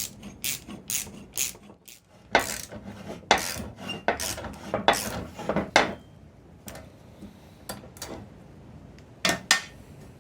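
Hand-tool work on a coil-spring strut: runs of short, rasping, ratchet-like strokes, about two a second, in two bursts with a pause between, then a few scattered clicks near the end.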